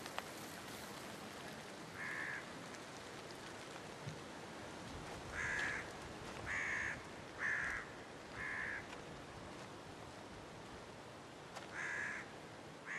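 A crow cawing about seven times in short single caws, four of them about a second apart in the middle, over a faint steady outdoor hiss.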